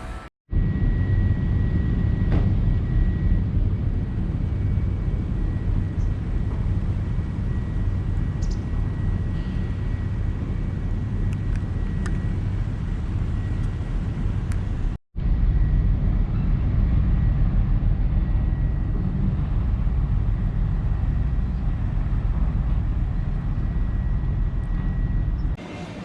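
Steady low rumble of a vehicle in motion, heard from inside, with a faint steady high whine above it. The sound drops out abruptly twice, shortly after the start and about halfway through.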